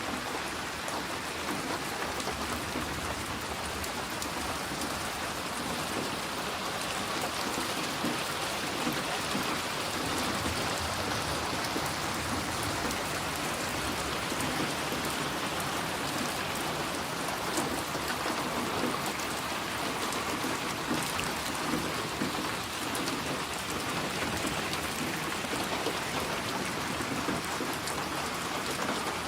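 Steady rain falling, an even hiss of many fine drop patters.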